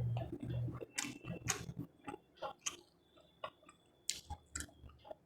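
Close-miked chewing and mouth sounds of a person eating, with a series of short, sharp wet clicks and smacks.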